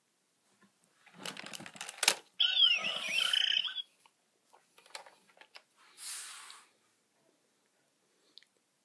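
Plastic clattering and clicks as a flap of an electronic toy animal book is folded shut. About two and a half seconds in comes a short animal sound with gliding pitch from the toy's small speaker, followed by a few light clicks and a brief hiss.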